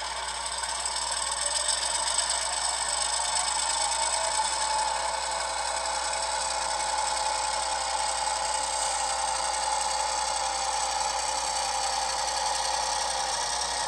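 Diesel engine sound from the DCC sound decoder of an HO scale MP15 model locomotive, played through a small speaker in an enclosure built into its long hood while the model runs along the track. It is steady and thin, with many tones and little bass.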